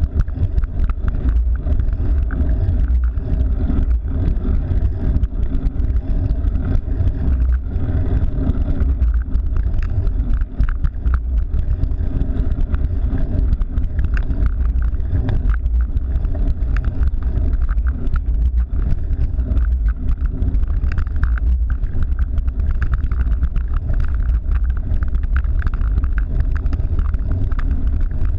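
Steady low rumble of wind and road noise picked up while riding a cyclocross bike, with many small rattles and ticks from the bike over the road surface.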